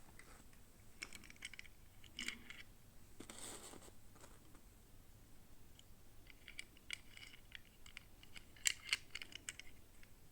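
Toy packaging being handled and opened: scattered light clicks and crinkles of plastic, with a brief rustle about three seconds in.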